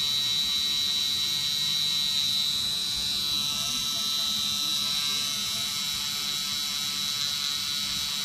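Permanent-makeup tattoo pen's small motor running steadily with a high whine as the eyebrows are shaded.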